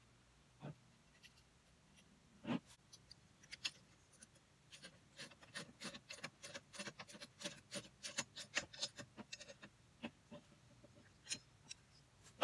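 Tree-stand parts being handled: light clicks and taps, a louder knock about two and a half seconds in, then a dense run of quick clicks through the middle.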